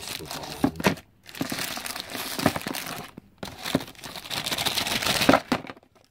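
Packaging crinkling and rustling as an internal card reader is unwrapped by hand, in bursts with two short pauses, about one and three seconds in, and dying away near the end.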